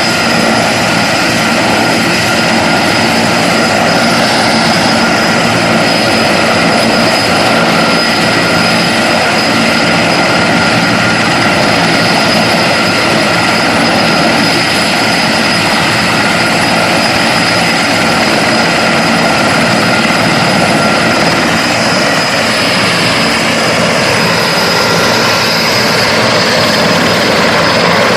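Large firefighting helicopter running loud and steady, a high turbine whine over the noise of its engines and rotor.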